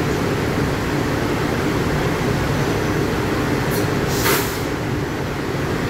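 A stationary LIRR M3 electric commuter train makes a steady low rumble and hum. A short sharp hiss of air comes about four seconds in.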